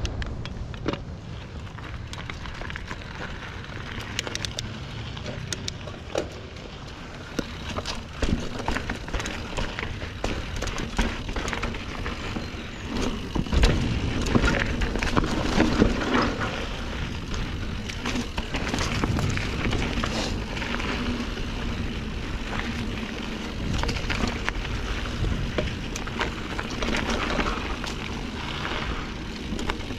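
Norco Sight A2 full-suspension mountain bike rolling over a dry dirt and rock single track: a steady crunch and low rumble from the tyres, with frequent clicks and rattles from the bike and loose stones. It is busiest and loudest about halfway through.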